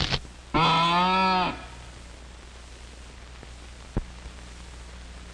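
Cartoon sound effect: a single drawn-out low cry, about a second long, its pitch bending slightly up then down, followed by the steady hum and hiss of an old film soundtrack with one sharp click about four seconds in.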